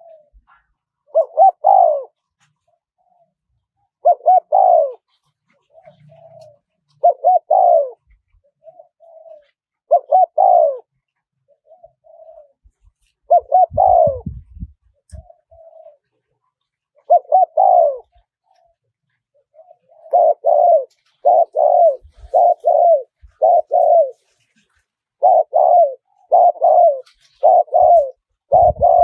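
Spotted dove cooing in repeated phrases, with softer short notes between them. The phrases come about every three seconds at first, then quicken to about one a second in the last third. It is the 'karom' style of call that decoy doves are kept for, played to lure wild doves in.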